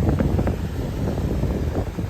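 Wind buffeting the microphone: a loud, irregular, gusty rumble.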